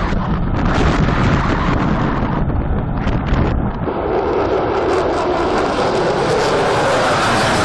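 Military jet engines at full afterburner on takeoff, a loud steady rushing roar that changes character about four seconds in.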